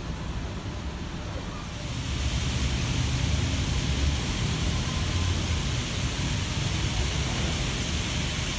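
Rows of fountain jets splashing into a pool: a steady hiss of falling water that swells about two seconds in, over a low rumble.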